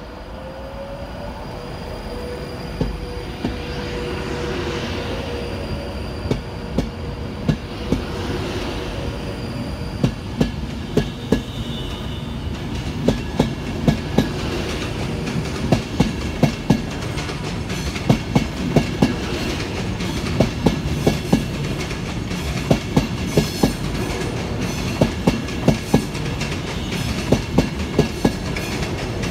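Virgin Class 390 Pendolino electric train pulling away, with a rising electric whine at the start. Its wheels then click sharply over rail joints and points in pairs and groups, the clicks coming more often as it gathers speed.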